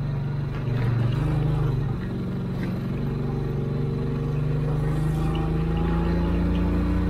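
Engine of a 1984 Cushman three-wheel utility vehicle running as it drives under its own power. The note rises a little about a second in, then holds steady.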